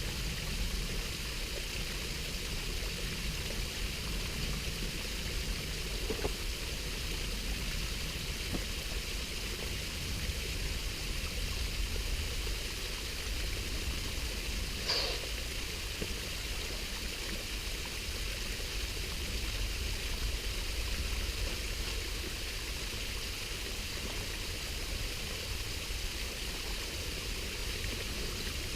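A small waterfall and stream rushing steadily, with one short sharp sound about halfway through.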